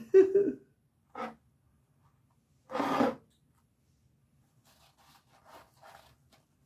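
Brief rubbing and scraping handling noises, the loudest a short scrape about three seconds in, with fainter scratching later.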